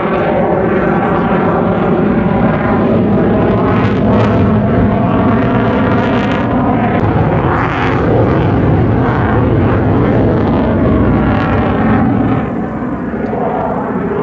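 Airplane flying overhead: a loud, steady engine drone with a stack of even tones, dropping somewhat in level about twelve seconds in.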